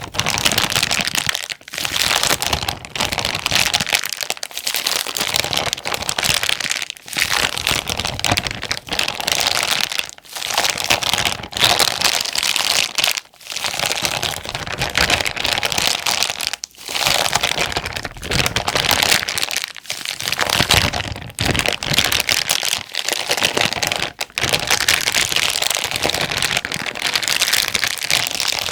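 Plastic zipper bag being crinkled and crumpled by hand, in dense crackling bursts broken by short pauses every second or two.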